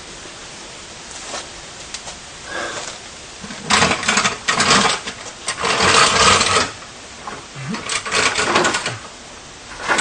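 Three bursts of rapid rattling clatter, each about a second long, from the Corvette's bare chassis being pushed forward across the shop floor; a few light clicks come first.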